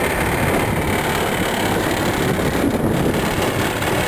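Small motorboat's outboard motor running steadily underway, with wind buffeting the microphone.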